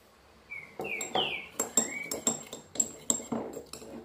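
A metal teaspoon stirring in a small ceramic ramekin, clinking against its side about four times a second, dissolving bubblegum-flavoured ice-cream powder in a little water. Before the clinking starts, a bird gives about four short chirps.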